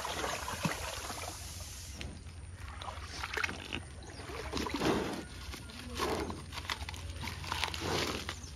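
Water sloshing around a water buffalo's legs in a shallow stream, with dry leaves rustling in short bursts as the buffalo pulls at them from a hand.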